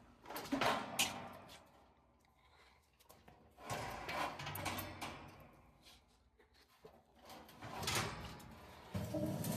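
Furnace blower assembly (squirrel-cage fan and housing) being handled and shifted, in three spells of handling noise with short quiet gaps between them.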